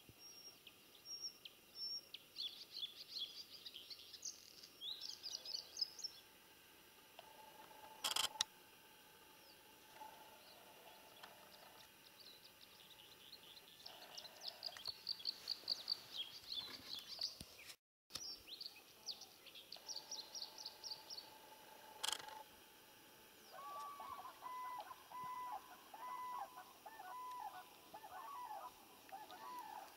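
Small songbirds singing in quick, high trills, in bursts, then a lower call of repeated notes over the last several seconds. Two sharp clicks stand out, about eight seconds in and again about twenty-two seconds in, and the sound briefly cuts out near the middle.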